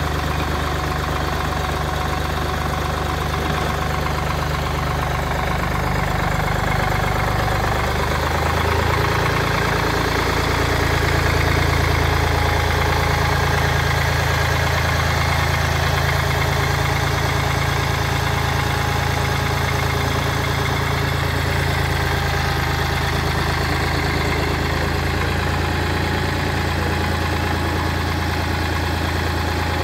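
SAME Fox crawler tractor's diesel engine running steadily as the tractor moves, its note rising slightly about nine seconds in.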